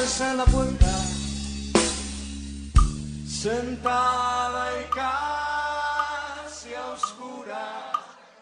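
Rock band backing track near its close: drum hits and a held bass note under a bending, wailing lead line. The bass cuts off about seven seconds in and the music fades.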